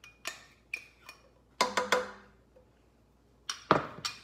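A utensil tapping against a small ceramic bowl to knock minced ginger and garlic out into a skillet: about ten sharp clinks in three clusters, the loudest ones ringing briefly.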